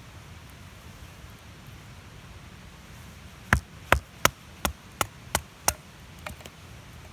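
Seven sharp chopping strikes in quick succession, about three a second, then a couple of faint taps.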